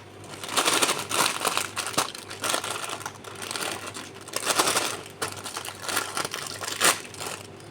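Plastic snack wrapper crinkling and crackling as it is handled and torn open, in irregular surges with a few sharp louder crackles.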